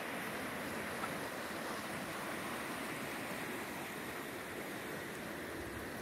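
Steady rush of a wide river in flood, an even noise with no separate events.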